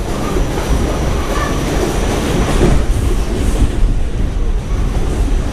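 R46 subway car running along the track, heard from inside the car: a loud, steady rumble of wheels on rail.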